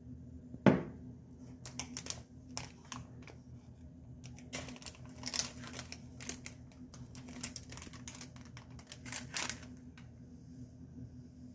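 Plastic food packets crinkling and clicking as a hand picks them up and handles them, with one sharp knock about a second in. A low steady hum runs underneath.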